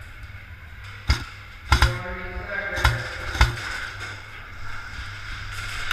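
Airsoft guns firing: about five sharp single cracks at uneven intervals, two of them in quick succession, over a steady low rumble.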